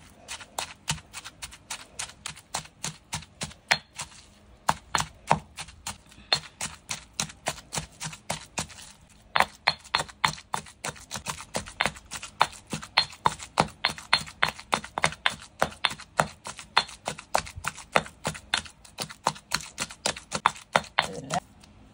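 Granite pestle pounding chillies, dried shrimp and shrimp paste in a granite mortar, with steady rapid strikes at about four a second. There is a short pause about four seconds in and another about nine seconds in, and the strikes come somewhat harder afterwards.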